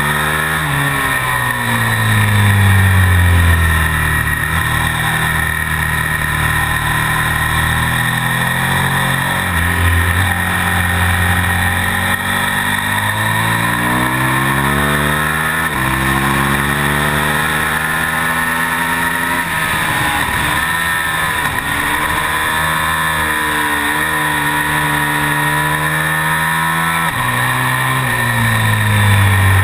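KTM Super Duke V-twin race bike engine at racing speed, revving up through the gears with sharp pitch drops at the shifts, and falling away when slowing for corners.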